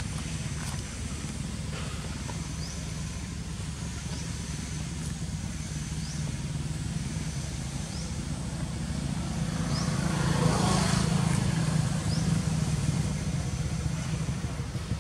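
Low steady rumble of distant motor traffic, swelling as a vehicle passes about ten seconds in. A short high rising chirp repeats every second or two over it.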